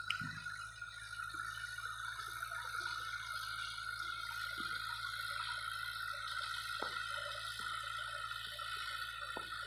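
Kubota L5018 diesel tractor working a rotary tiller at a distance: a steady engine drone with a constant high whine over it and a few faint clicks.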